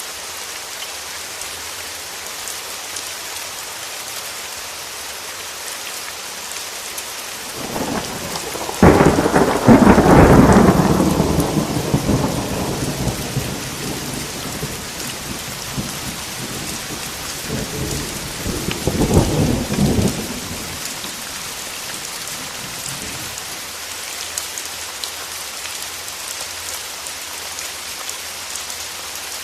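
Steady rain falling with a thunderstorm. A loud clap of thunder comes about nine seconds in and rumbles away over several seconds. A second, shorter rumble of thunder follows later.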